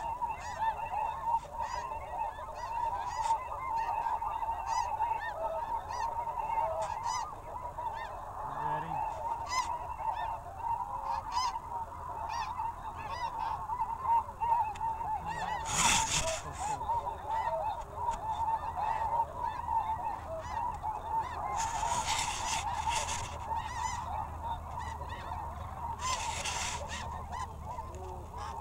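A steady, dense chorus of snow goose calls, many overlapping yelps, with a few brief bursts of noise near the middle and toward the end.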